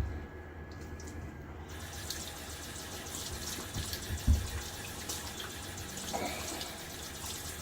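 Bathroom sink tap running, turned on about two seconds in, with a couple of low thumps.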